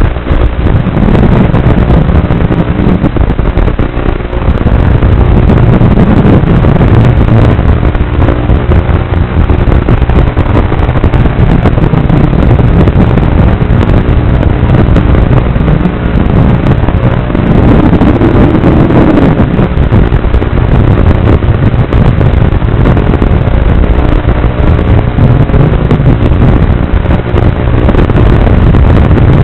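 Small FPV racing drone's motors and propellers buzzing loudly and continuously, the pitch rising and falling several times as the throttle changes.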